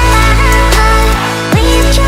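Electronic dance music with a heavy bass and falling synth sweeps, dubstep in style.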